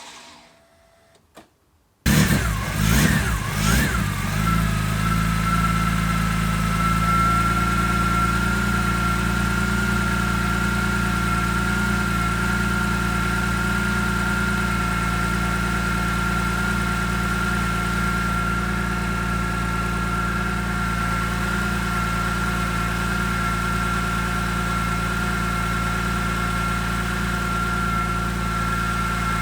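Freshly rebuilt BMW S54 3.2-litre inline-six catches after a moment of near silence, about two seconds in. It flares unevenly for a couple of seconds, then settles into a steady idle with a steady high whine over it. This is the engine's first start after a rebuild with new pistons, rods and bearings.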